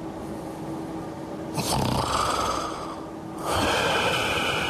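A person snoring: two long, rasping snores, the first starting about one and a half seconds in and the second about three and a half seconds in.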